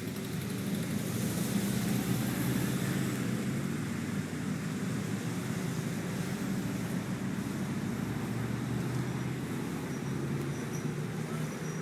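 A vehicle engine running steadily, a low rumble that swells slightly over the first couple of seconds and then holds.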